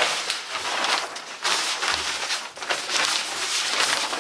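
A large plastic sheet rustling and crinkling in irregular bursts as it is unfolded and spread over a table.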